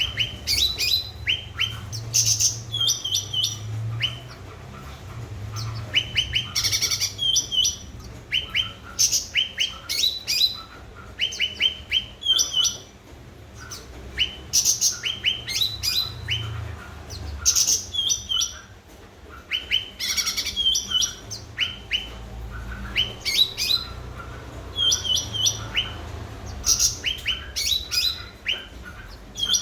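Cucak ranting songbird singing vigorously, repeating rapid runs of short, sharp, downward-sliding chirps in quick phrases, with a low hum underneath.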